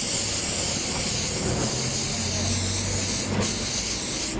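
Aerosol spray can hissing steadily as it sprays penetrant cleaner over a weld, washing off the red dye of a dye-penetrant test.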